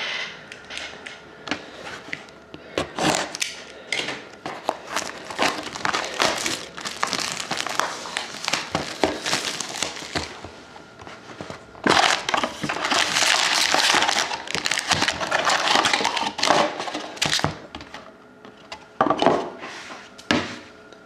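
Plastic wrapping being torn and crinkled by hand as a box of trading cards is unwrapped and opened, with many small crackles and a longer, louder stretch of crinkling in the second half.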